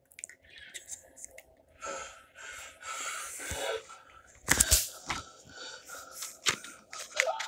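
Rustling and scraping with several sharp knocks, the loudest a cluster about four and a half seconds in: handling noise from a device being moved or covered.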